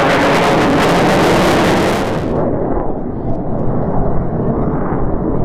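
Loud jet noise from a McDonnell Douglas RF-4E Phantom II's twin J79 turbojets as it passes overhead. About two seconds in the high hiss drops away suddenly, leaving a deeper rumble as the jet flies off trailing smoke.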